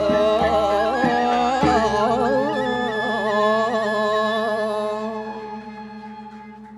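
Balinese gamelan gong kebyar ending a piece: the metallophones and gongs play a last phrase, then ring on and die away, a low gong tone pulsing as it fades.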